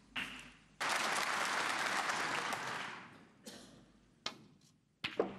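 Audience applauding in a snooker arena: the clapping starts about a second in, lasts about two seconds and dies away. A few sharp knocks follow near the end.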